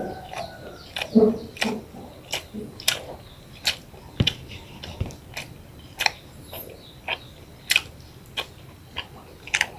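Close-up chewing: a person eating, with a string of sharp, wet mouth smacks coming irregularly, roughly two a second.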